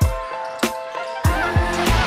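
Background music with a steady beat: deep bass-drum hits about every 0.6 s under sustained synth notes.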